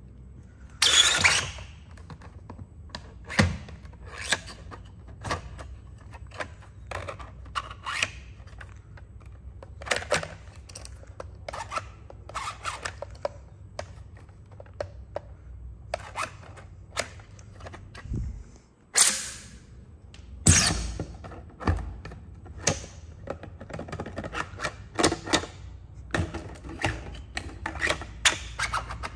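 3D-printed plastic collapsing drill sword being worked by hand: its nested print-in-place blade segments click and clack as they slide and lock. A few louder rattling clatters come about a second in and again around nineteen and twenty seconds in.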